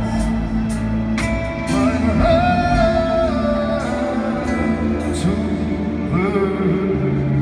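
Live music: piano and upright double bass playing under slow, long-held sung notes that glide between pitches.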